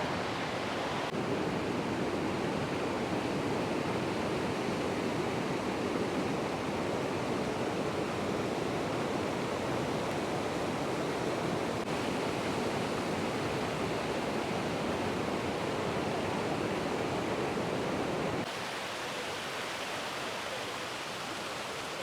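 Waterfall at Shiraito Falls rushing steadily, many streams of water spilling over a rock face. About 18 seconds in it drops to a somewhat quieter rush.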